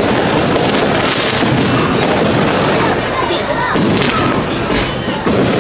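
Fireworks going off in quick succession, a dense, unbroken run of bangs and crackles, with voices in the background.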